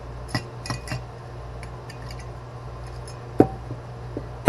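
Small clinks and taps on the glass of a hurricane lamp as a string of fairy lights is stuffed inside. There are three light clicks in the first second, then a sharper knock about three and a half seconds in and another at the very end.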